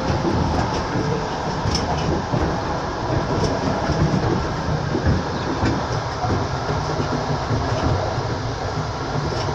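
A train rolling past: steady, loud wheel-on-rail noise with scattered clicks.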